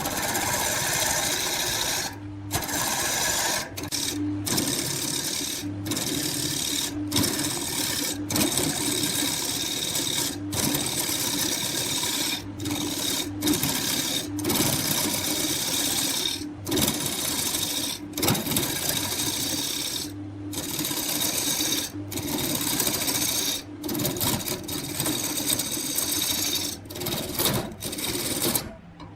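Wood lathe running, with a steady motor hum and a turning tool scraping and cutting the spinning wood. The sound breaks off briefly every second or two.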